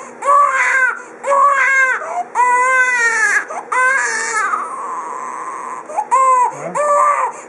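Fussy newborn baby crying hard, a string of about six short, high-pitched wails with brief pauses between them.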